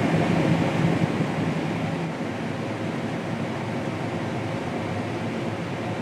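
Combine harvester running while harvesting corn, heard from inside the cab: a steady machine drone with faint low hum tones, dipping slightly in level about two seconds in.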